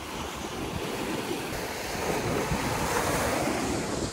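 Wind-driven waves washing onto a stony lakeshore, with strong wind rushing over the microphone.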